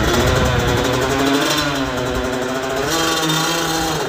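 Two-stroke Yamaha YZ dirt bike engine revving, its pitch rising and falling several times as the bike pulls away.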